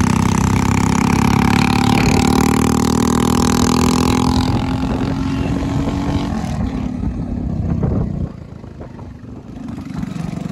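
Single-cylinder Hero Splendor motorcycle engine running steadily under way, with wind rushing past. The sound drops away sharply about eight seconds in, then picks up again near the end.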